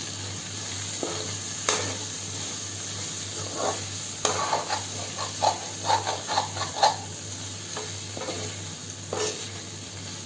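Okra sabzi sizzling in a kadhai while a metal spoon stirs in chopped coriander, scraping and knocking against the pan, with a quick run of scrapes in the middle.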